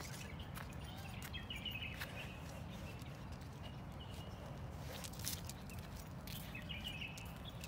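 Faint outdoor ambience: a steady low rumble, scattered light clicks, and short high chirps from small birds in three brief bouts, about a second in, near the middle and near the end.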